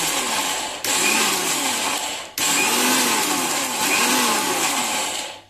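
Electric mixer grinder running in short pulses, coarsely grinding soaked urad dal without water. The motor cuts out for an instant twice, a little under a second in and about two and a half seconds in, then runs again until it winds down near the end.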